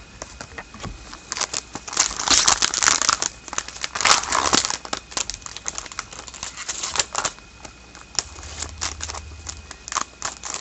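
Foil hockey card pack wrapper crinkling as it is torn open and handled, with loud stretches of crackling in the first half, then scattered light clicks and rustles.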